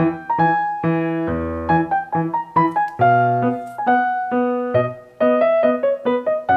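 Background instrumental music: a tune of quick struck notes, several a second, each ringing briefly and fading.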